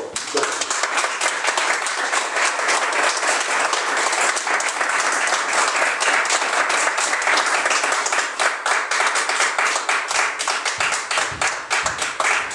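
Audience applauding: dense clapping that breaks out all at once and keeps up steadily.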